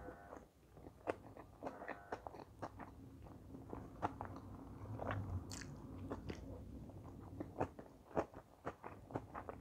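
Close-up chewing of sushi rolls: wet mouth sounds with sharp, irregular crunches and clicks.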